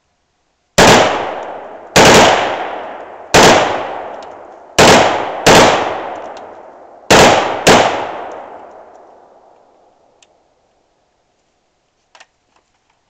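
Seven shots from an AR-15-style semi-automatic rifle, fired one at a time at uneven gaps of roughly one to one and a half seconds, two of them in quick pairs. Each shot is followed by a long echo that dies away. A faint click comes near the end.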